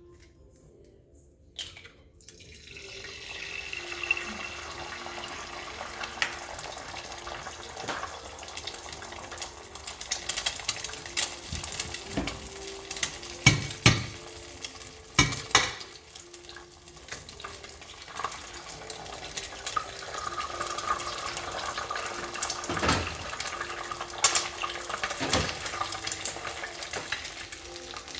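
Kitchen cooking sounds: a steady hiss that starts about two and a half seconds in, with scattered knocks and clinks of utensils and dishes.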